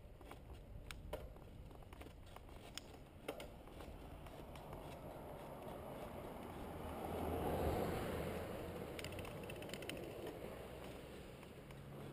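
A car approaching and passing a moving bicycle: its tyre and engine noise swells, peaks about eight seconds in, then fades. Beneath it runs the low rumble of the bike's own riding, with small rattles and ticks from the bike in the first few seconds.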